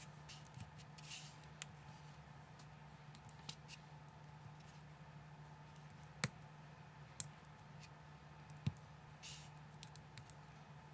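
Small plastic building bricks clicking and snapping as fingers press them together and handle them: scattered faint clicks, with three sharper snaps between about six and nine seconds in, over a low steady hum.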